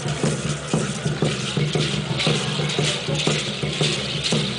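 A steady drumbeat for a dance, about two beats a second, with the shaking hiss of rattles over it, growing stronger about two seconds in.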